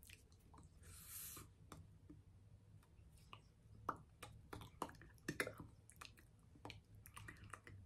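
Near silence with a faint low room hum, broken by scattered soft clicks, taps and mouth smacks from a woman's hands and mouth as she signs. A short breathy hiss comes about a second in.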